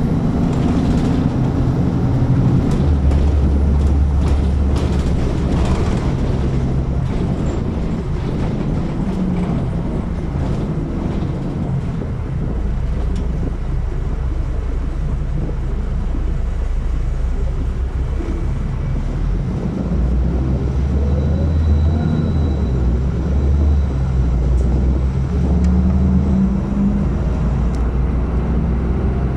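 City bus running, heard from inside at the rear: a loud low engine drone that steps up and down in pitch as it pulls away and changes gear, with a few rattling knocks in the first few seconds.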